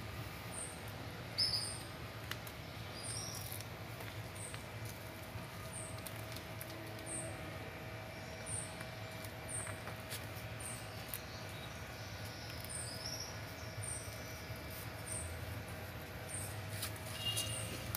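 Short, very high-pitched chirps repeating about once a second over a faint steady hum.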